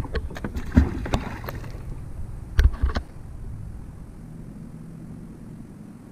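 Knocks and clunks in a kayak as a magnet-fishing magnet and its rope are handled and thrown back into the river, the loudest thud about two and a half seconds in. After that, only a low steady noise.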